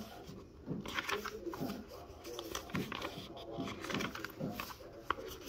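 Paper pages of a small handwritten notebook being turned by hand, giving brief soft rustles, over a low murmur of voice-like sounds.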